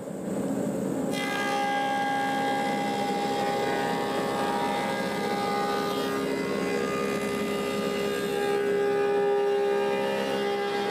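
Woodmaster 725 planer running as a spalted apple slab feeds through it: a steady mechanical whine of motor and cutterhead, with a higher, fuller whine joining about a second in.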